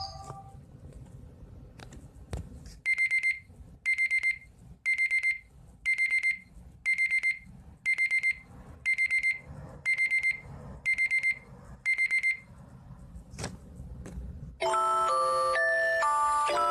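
LG K7 Android phone's alarm tone played through its speaker: a classic digital alarm-clock beep, ten groups of four quick high beeps, one group a second. A couple of seconds before the end a different, melodic chiming tone starts.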